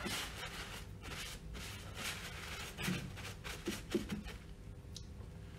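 Cloth rubbing over a pump's seal cover in gloved hands, wiping it clean: a run of short swishing strokes with a few light knocks about three to four seconds in.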